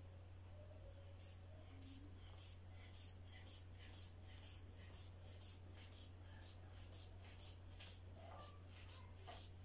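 Rubber inflation bulb of an aneroid blood-pressure cuff being squeezed over and over to pump up the cuff. Each squeeze gives a short, faint puff of air, about two a second, starting about a second in. A low steady hum runs underneath.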